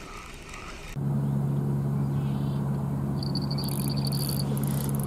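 A carp run: a reel's free-spool clicker buzzes steadily as a fish strips line off it, starting suddenly about a second in. A rapid, high-pitched electronic beeping from a bite alarm joins about three seconds in.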